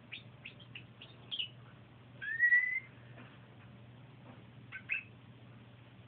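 Domestic canary singing: a run of short high chirps, then one longer whistled note that rises slightly, the loudest part, and two more short notes near the end.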